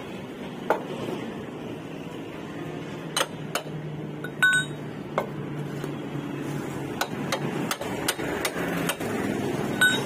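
A hammer knocking on a motorcycle's steel rear axle spindle to drive it back through the wheel hub. Sharp metallic knocks come at irregular intervals, and a couple of them ring briefly.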